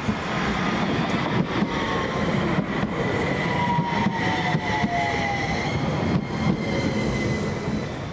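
CAF Urbos low-floor tram passing close by at speed, its wheels and running gear giving a steady rumble. A thin high whine slides down in pitch as it goes by.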